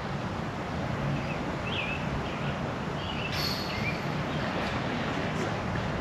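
Steady wind rumble on the microphone, with a few faint high chirps, likely birds, in the first half.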